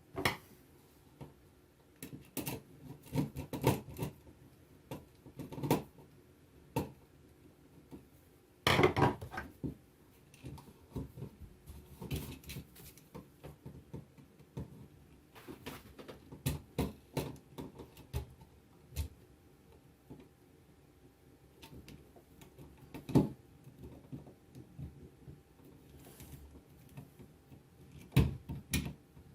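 Irregular small clicks, taps and scrapes of a new wall outlet being handled and wired with a screwdriver, with a longer, louder handling noise about nine seconds in and a sharp tap later on.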